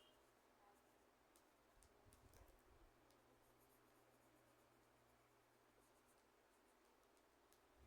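Near silence, with faint scattered clicks and a soft scratching of colouring in a candy wrapper by hand.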